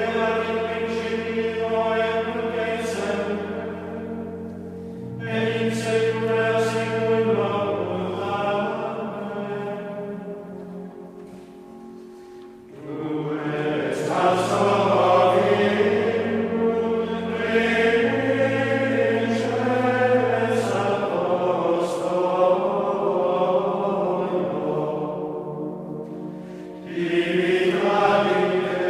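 Male choir of Benedictine monks singing Gregorian chant in long, flowing phrases. The singing dies away just before the middle, and a new phrase begins about thirteen seconds in, with another entry near the end.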